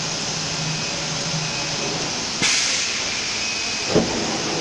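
ATC CNC router with automatic feeding running steadily with a low hum and hiss. About halfway through comes a sudden sharp hiss of compressed air venting that fades within a fraction of a second, and near the end a short thump.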